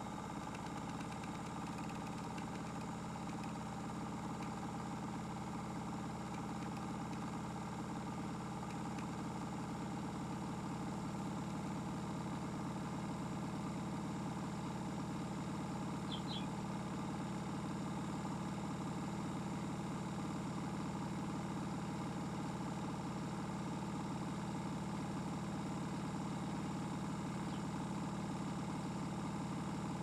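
Modified Miele W1 toy washing machine running, its small electric motor turning the drum with a steady hum. The hum grows slightly louder over the first several seconds, and there is one faint click about halfway through.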